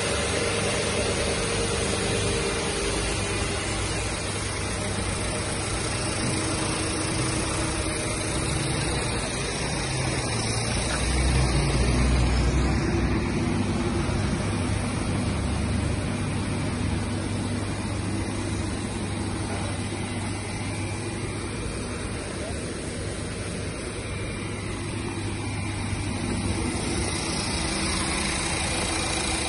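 Renault Fluence engine idling steadily during an engine carbon-cleaning treatment, with the cleaner's hose feeding the engine bay. The low rumble grows louder for a couple of seconds about eleven seconds in, then settles again.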